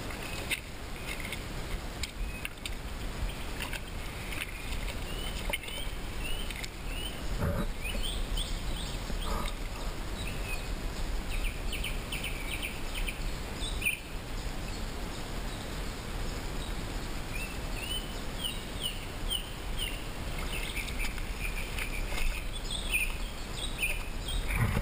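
Songbirds chirping in short repeated phrases over a steady low rumble, with a couple of brief knocks partway through.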